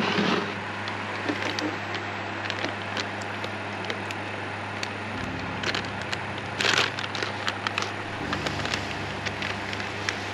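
Scattered clicks, knocks and rustling of fishing gear being handled and set up, with a louder rustling clatter about two-thirds of the way through, over a low steady background hum.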